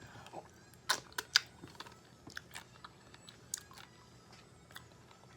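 Eating a bowl of fruit in coconut water: sharp clicks and taps of a spoon against the bowl, with a few loud ones about a second in and lighter scattered ones after, along with chewing.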